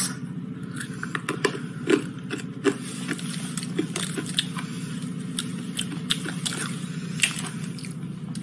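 Hard blue rock candy, little sugar-crystal rocks, being crunched and chewed close to the microphone: a run of irregular sharp cracks and clicks over a steady low hum.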